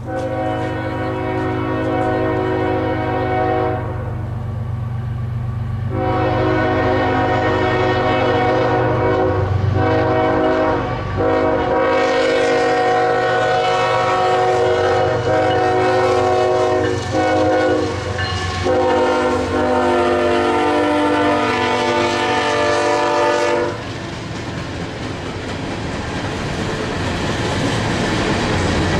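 CSX freight locomotive's air horn blowing long blasts for a grade crossing over the low rumble of its diesel engine; the horn falls silent about 24 seconds in and the steady rolling clatter of freight cars passing rises.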